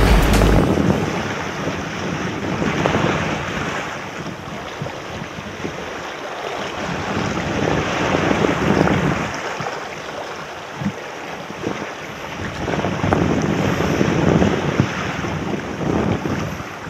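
Wind buffeting the microphone over small waves washing around shoreline rocks, the noise swelling and easing every few seconds, with a heavy low rumble of wind at the very start.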